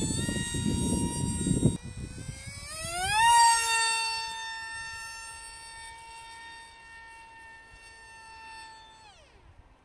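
Electric motor and propeller of a 3D-printed RC delta-wing plane whining in flight. The whine rises sharply in pitch about three seconds in as the throttle opens, holds steady while growing fainter with distance, then falls in pitch and stops near the end as the throttle is cut. A low rumble stops about two seconds in.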